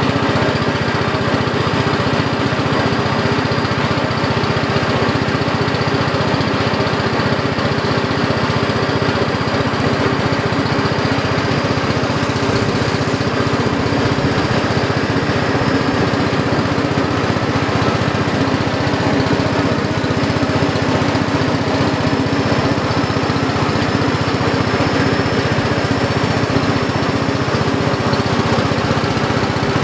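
Engine of a small wooden river boat running steadily under way, an even, unchanging drone.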